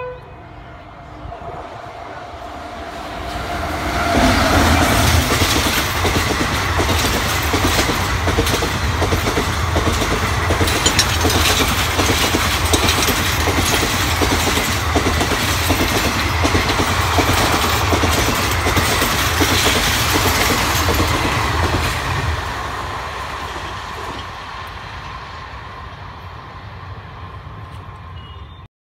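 Indian Railways WAP-7 electric locomotive and ICF passenger coaches passing at about 110 km/h. A horn note sounds as the train approaches. About four seconds in it swells into loud rolling noise with the rapid clickety-clack of wheels over rail joints, which fades as the train goes away.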